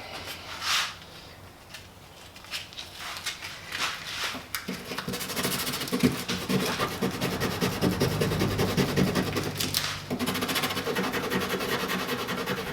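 Paint being sanded off an ABS plastic motorcycle saddlebag down to bare plastic. Light rubbing comes first; about five seconds in, a steady scratchy sanding noise with a low hum sets in and keeps going, easing briefly near the end.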